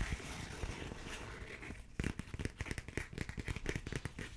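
Paper pages of a small pocket booklet being handled and leafed through: a soft rustle at first, then from about halfway a quick run of crisp crinkling page flicks.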